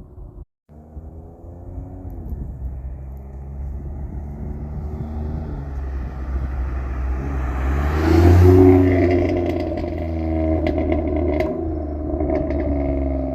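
Pontiac G6 GT's V6 exhaust through a Flowmaster 40 Series muffler: a deep engine rumble that builds to a loud peak about eight seconds in, then eases off, with several sharp pops and crackles near the end.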